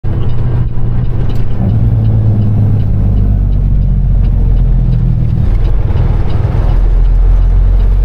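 Caterpillar 6NZ inline-six diesel engine of a Peterbilt 389 semi truck running at road speed, heard inside the cab as a loud, steady low drone mixed with road noise. Its note changes about five and a half seconds in.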